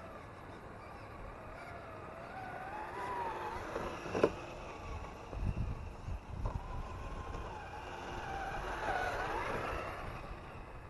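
Traxxas TRX-4 RC crawler's electric motor and gearbox whining, the pitch rising and falling with the throttle as it crawls through snow, growing louder as the truck comes close near the end. A sharp click about four seconds in.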